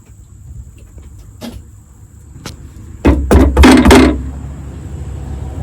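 Starter motor briefly cranking a 1986 Holden VL Commodore's RB30 straight-six, loud for about a second starting about three seconds in, then a low steady hum. The engine does not fire and no fuel pump is heard priming: the fuel pumps are dead.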